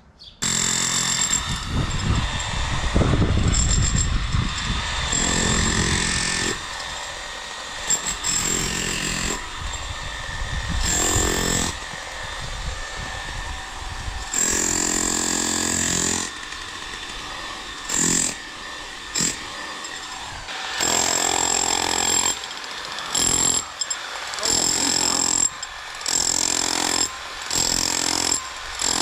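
Jackhammer breaking up the concrete around a metal gate post, running in repeated bursts of a few seconds with short pauses between.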